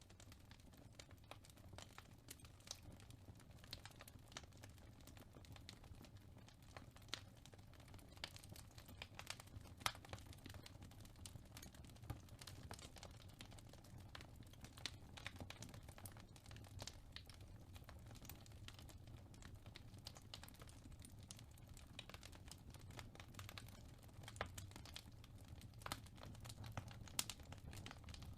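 Faint crackling of a wood fire in a fireplace: irregular small pops and snaps over a low steady hum.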